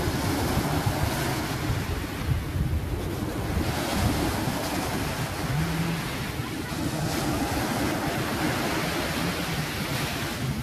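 Small ocean waves breaking and washing up a sandy beach in a steady surf wash, with wind buffeting the microphone.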